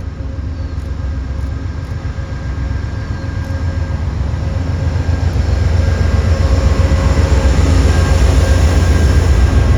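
A train approaching on the tracks, its low running sound growing steadily louder.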